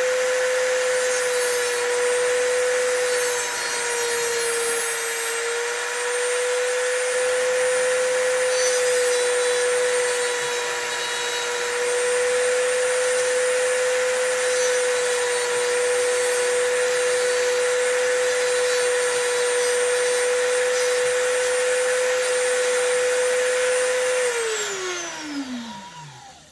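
Dremel rotary tool with a cutoff wheel running at a steady high whine while it cuts the bitting into a metal key blank, with rougher grinding as the wheel bites. Near the end it is switched off and the whine falls in pitch as it spins down.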